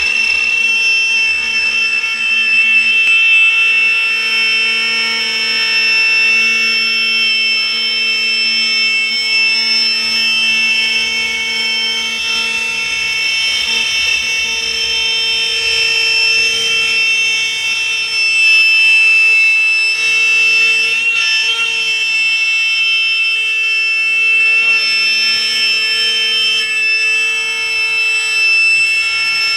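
Four-axis CNC router spindle cutting a curved bent-plywood chair back, a steady high-pitched whine over the cutting noise.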